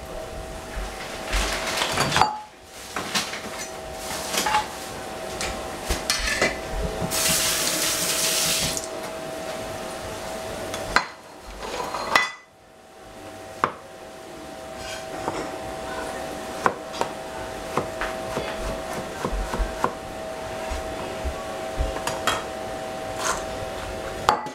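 Kitchen utensils and pots clinking, knocking and scraping at irregular moments while cooking, over a steady hum. A brief hiss comes about seven seconds in and lasts a couple of seconds.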